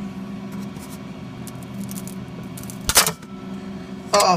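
A sharp crack about three seconds in, over a steady low hum: a 3D-printed plastic dragon's foot snapping off as the print is pried from the printer bed.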